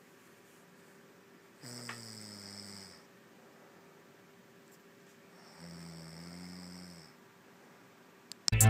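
A sleeping woman snoring: two long, pitched snores about four seconds apart, with quiet breathing between. Loud electronic music cuts in near the end.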